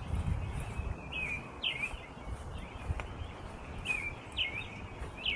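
A songbird singing: short, quick chirped phrases of two or three sliding notes, repeated about every second, over low background noise.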